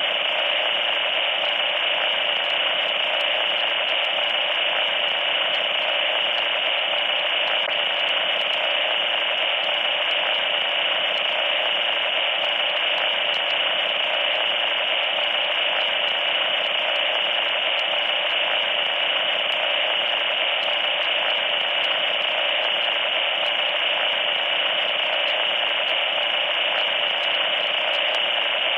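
Loud, steady static hiss, thin and without bass, that does not change.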